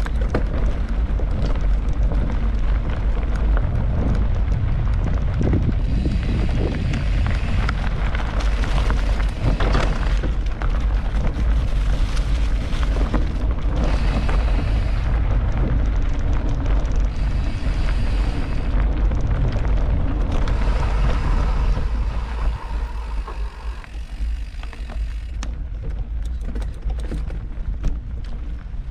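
Riding noise from a mountain bike on a forest trail: wind buffeting the microphone over tyre rumble, with scattered rattles from the bike. The rumble eases off about 22 seconds in.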